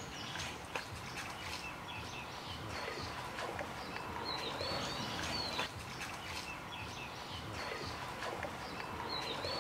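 Small birds chirping in a tree, with short chirping calls coming a few times over steady outdoor background noise.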